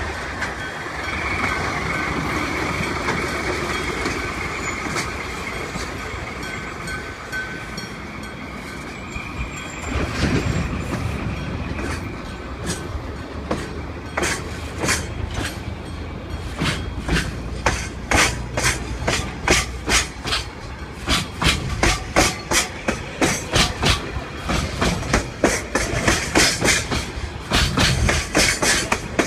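Freight train hauled by a diesel locomotive passing over a level crossing. A steady rumble at first, then from about a third of the way in the wagons' wheels clack over the rail joints in a regular rhythm that grows louder and closer-spaced towards the end.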